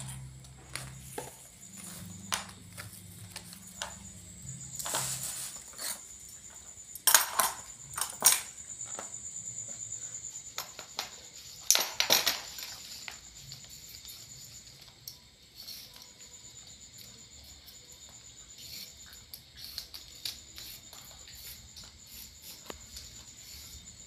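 Food-preparation noises: irregular snips, snaps and clacks of scissors and a knife cutting water spinach stems on plastic cutting boards, with a few sharper knocks as vegetables and tools are set down, the loudest a few seconds in and again near the middle.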